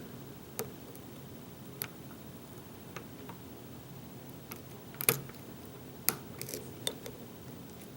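Lock pick and tension wrench working in a pin-tumbler challenge lock: scattered sharp metallic clicks and ticks as the pins are lifted and set, loudest about five seconds in.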